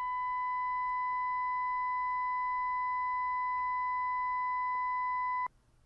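Brüel & Kjær Type 4231 sound calibrator on a head and torso simulator's left ear plays a steady 1 kHz calibration tone at 95.2 dB with faint overtones, which is the calibrator's normal distortion. The tone cuts off abruptly about five and a half seconds in, when the 5-second ear-simulator input calibration finishes.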